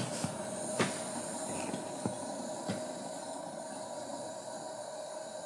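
Small butane torch lighter's flame hissing steadily as it burns the insulating varnish off the end of an enamelled copper coil wire, with a few sharp clicks in the first three seconds.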